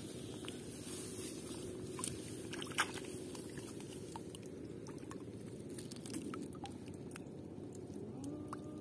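Rustling and handling noise as rice stalks are pushed aside and a wire fish trap is handled, with a few sharp clicks, the loudest about three seconds in.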